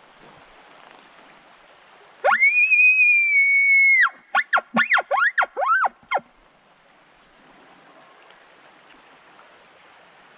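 Elk bugle: a call that sweeps up into a high whistle held for about two seconds, followed by six quick chuckles.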